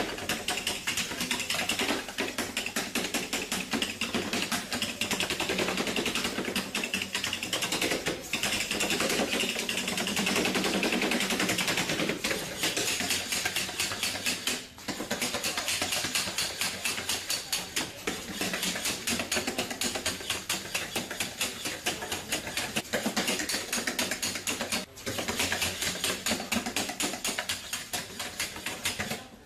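Bioloid GP humanoid robot walking on a tabletop: its Dynamixel AX-18A servos and feet give a dense, rapid clatter of ticks that runs on with only brief pauses.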